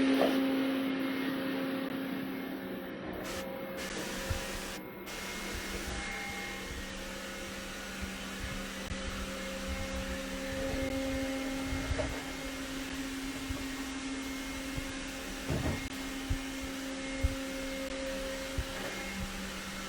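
Roborock E5 robot vacuum running: a steady whir and hum with a few faint knocks.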